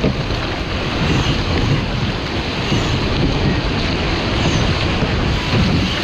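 Wind buffeting the microphone over the steady rush of surf and whitewater along a surf boat's hull as it is rowed out through breaking waves.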